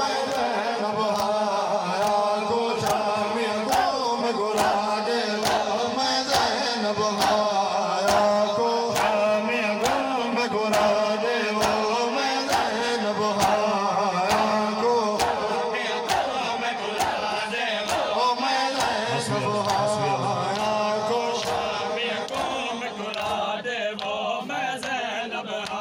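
Men chanting a noha in unison over a steady rhythm of chest-beating (matam), about two slaps a second.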